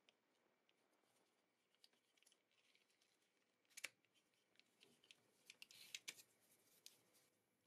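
Faint clicks, ticks and light scraping from hands and a desoldering tool working on a mouse's circuit board during a switch replacement, with a sharper click about four seconds in and a short run of clicks and rustling around six seconds.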